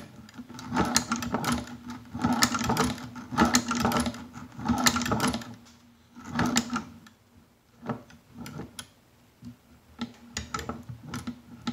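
Hand-cranked leather shoe patcher sewing machine stitching through two layers of thick 9/10 oz veg-tan leather: mechanical clatter and clicks as the crank drives the needle through, one stitch after another, about one a second. The stitching thins to scattered single clicks in the second half.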